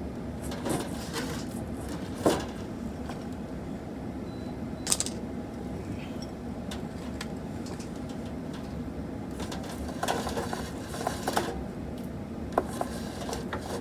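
Scattered clicks and rustles of alarm cable being handled and pulled to length, with a sharp click about two seconds in and a cluster of handling noises near the end, over a steady low hum.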